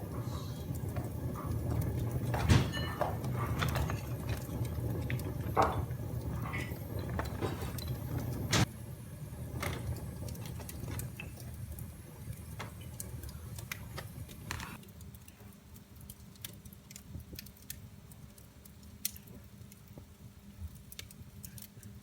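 Wood fire in a fireplace crackling, with sharp pops at irregular moments, the loudest about 2.5, 5.5 and 8.5 seconds in. A low rumble under it drops away about two-thirds of the way through, leaving quieter, quick little crackles.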